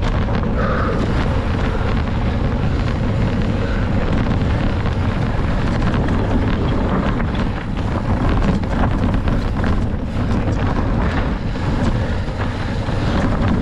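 Wind buffeting the microphone of a rider-mounted camera on a cross-country mountain bike, over the steady rumble of the tyres on rough ground and many small knocks and rattles from the bike.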